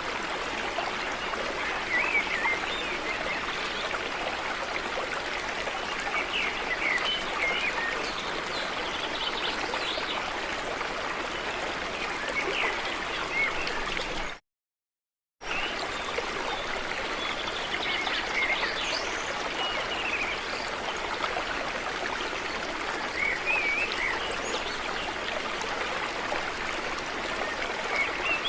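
Male painted bunting singing short warbled phrases every few seconds over a steady rushing noise. The sound cuts out completely for about a second midway.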